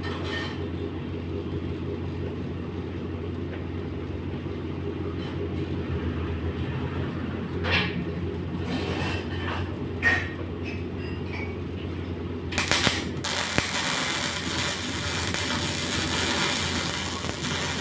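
Electric arc welding: a steady low machine hum with a few sharp clicks, then about two-thirds of the way in the arc strikes and a loud, steady hiss carries on.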